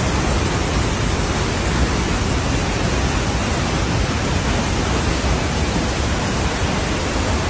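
Muddy floodwater rushing down a steep slope in a torrent: a loud, steady, dense rush of heavy flow.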